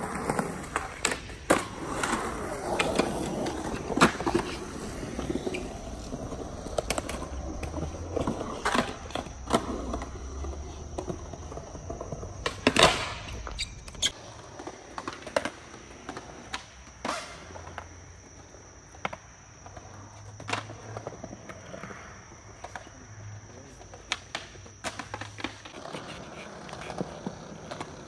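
Skateboards on concrete: wheels rolling, with a string of sharp pops and clacks from boards being popped and landed. The loudest clack comes a little before halfway through.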